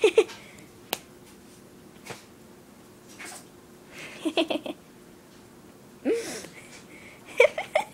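Two chihuahuas fighting, growling and yapping in short outbursts, with a quick run of them about four seconds in and another near the end.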